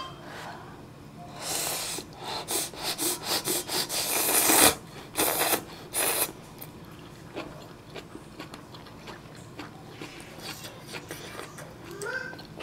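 A person slurping ramen noodles in a run of quick sucking slurps, the loudest about four and a half seconds in, followed by quiet chewing.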